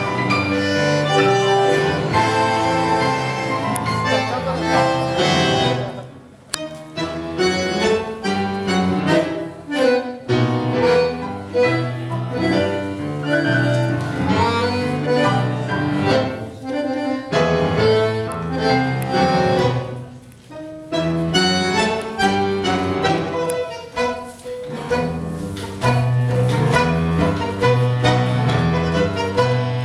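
Tango music from a small live ensemble: an accordion-type squeezebox and bowed strings over a double bass. The playing stops short twice, about six seconds in and again around twenty seconds, then comes back in.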